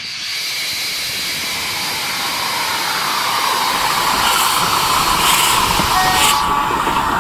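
Steam locomotive blowing off steam with a loud hiss that grows louder.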